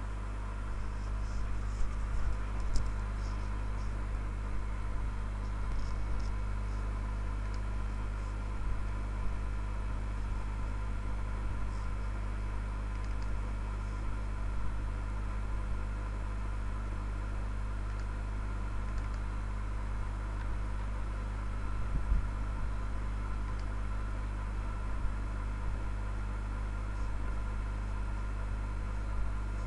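Steady low hum and whir of background noise, with a few faint clicks scattered through and a soft thump about three quarters of the way in.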